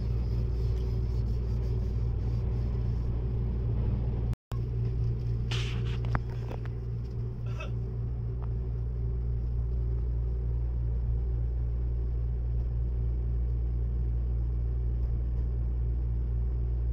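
Steady low rumble and hum inside a Seibu Laview limited-express carriage, with a few brief light rustles or clicks about six to eight seconds in.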